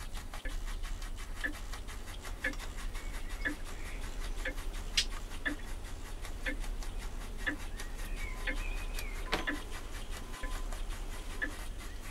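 Model steam beam engine running slowly and steadily, with a regular tick from each stroke about once a second over a low hum. A pet budgerigar chirps faintly in the background about two-thirds of the way through.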